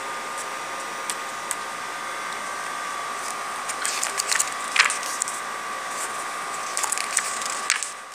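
Glossy magazine pages being handled and turned, giving a few short crackles and rustles from about halfway in. Under them runs a steady background whir with a faint high hum.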